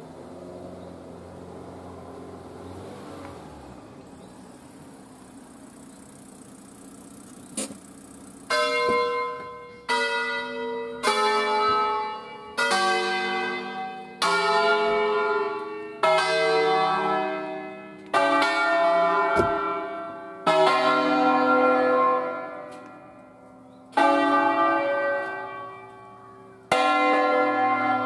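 Church bells from an eight-bell ring in C, cast by Luigi Cavadini in 1925, rung by hand in a solemn peal. After about eight seconds of faint humming, the bells sound one after another: about ten strokes, each ringing out and dying away, coming further apart toward the end.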